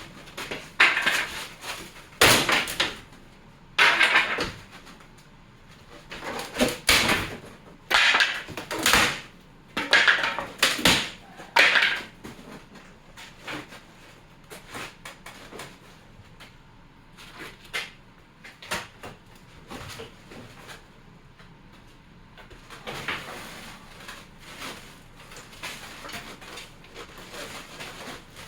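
A wooden box being pried apart with a crowbar: a run of loud creaks and knocks as the nailed panels and nails give, spaced about a second apart through the first dozen seconds, then quieter scraping and handling of the wood.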